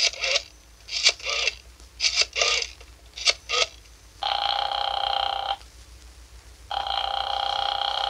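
Telephone call being placed as a radio sound effect: a rotary dial is worked in several short whirring strokes, then the line rings twice, each ring a steady buzzing tone lasting over a second.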